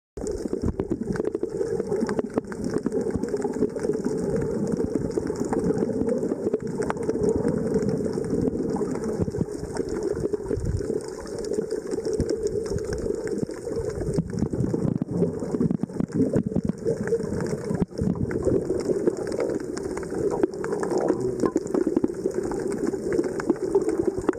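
Underwater ambience: a steady, muffled rush of water with faint crackling all through.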